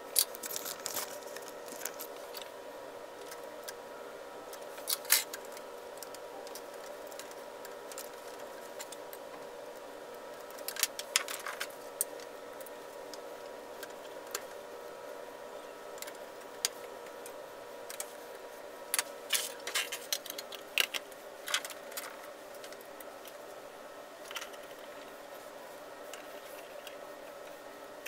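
Scattered small clicks and taps of hands, tweezers and a small screwdriver reassembling an Xbox One disc drive: seating the daughter board and its ribbon cable and fitting the metal drive cover. Under them a steady hum, whose higher tone stops about two-thirds of the way through.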